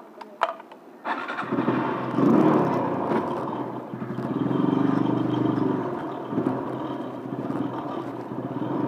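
A few clicks, then a motorcycle engine starts about a second in and runs, growing louder and quieter as it is ridden off after refuelling.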